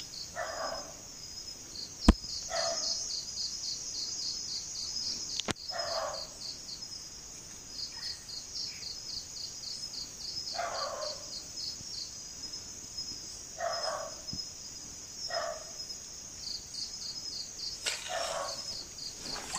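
Night insects, crickets among them, trilling steadily in a high, pulsing chorus. A sharp click about two seconds in, and a few short rustles every few seconds.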